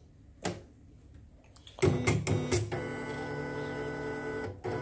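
CNY portable embroidery machine: a click, then about two seconds in the machine starts with a few knocks and settles into a loud steady hum with a pitched whine. This is the loud, rough running that is the fault being serviced.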